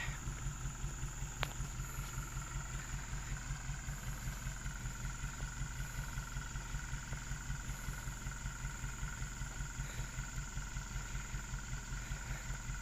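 Toyota 13B diesel engine in a 4x4 hardtop idling steadily with an even, rhythmic pulse, and a thin steady whine above it. A single click about a second and a half in.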